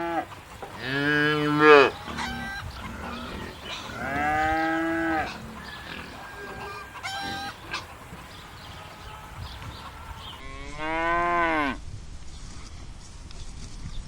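Cows mooing: three long moos of about a second each, several seconds apart, the last one falling in pitch.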